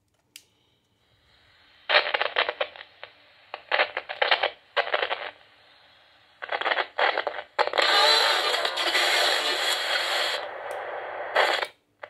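Eton hand-crank emergency radio's speaker giving bursts of static as its tuning dial is turned: a few short hisses, then a longer stretch of static from about halfway through that stops shortly before the end.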